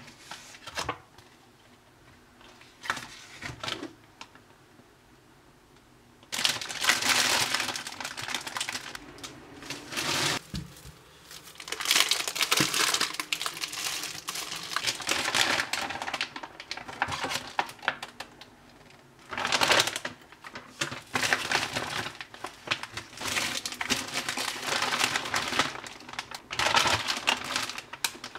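Plastic grocery bags and frozen-food packaging crinkling and rustling as they are handled and unpacked. There are only a few short rustles for the first six seconds, then steady crinkling in fits and starts.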